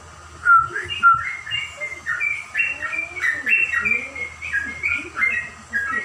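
Yellow-vented bulbul (trucukan) singing a fast, unbroken run of clear whistled notes. The song starts about half a second in.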